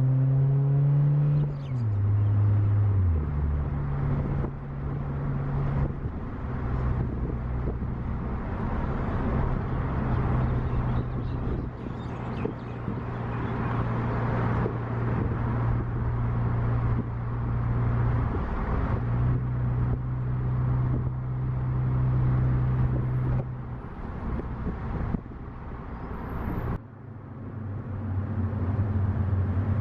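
A 1998 Honda Prelude heard while being driven: steady engine note and road noise. The engine pitch drops in steps a couple of seconds in, as at a gear change, then holds fairly steady. The sound cuts out abruptly for a moment near the end.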